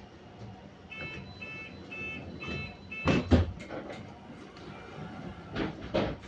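Bus door-closing warning beeper sounding five short beeps, about two a second, followed by the doors shutting with heavy thuds about three seconds in. A couple more knocks come near the end.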